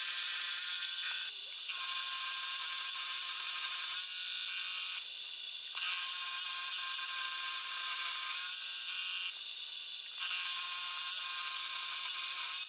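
Milling machine spindle running a two-flute slotting cutter through cold rolled steel, cutting a slot: a steady hiss with a cluster of whining tones that drop away twice for a second or so.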